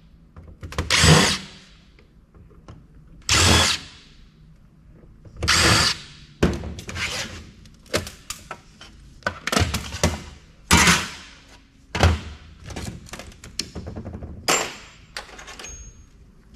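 A series of short bursts from a power screwdriver and clunks of metal parts as a CD-ROM drive's casing is taken apart, with small clicks and rattles in between.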